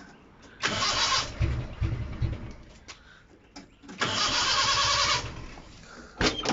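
Nissan 1400 bakkie's four-cylinder engine, which has a misfire, being cranked by the starter motor in two spells of about a second each. Uneven low pulses follow the first spell as the engine tries to fire. A sharp knock comes near the end.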